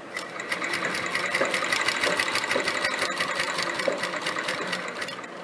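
Pedal-driven domestic straight-stitch sewing machine running, its needle stitching through cotton fabric in a fast, even clatter of ticks over a steady whirr. It is sewing a test seam at stitch length 2, and it stops near the end.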